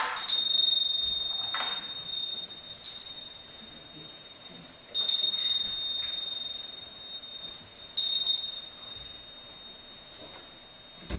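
A high-pitched metal chime struck three times, each strike ringing one clear tone that hangs and slowly fades, with a few lighter tinkles in between.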